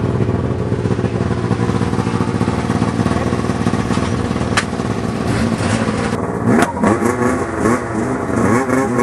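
Two Polaris snowmobile engines running at idle side by side. After about six seconds they rev up and down in short, repeated surges.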